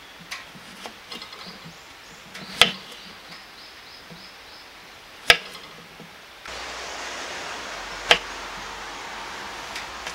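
Knife cutting through a potato and knocking on a wooden cutting board: a few sharp chops several seconds apart. About six and a half seconds in, a steady hiss comes in behind them.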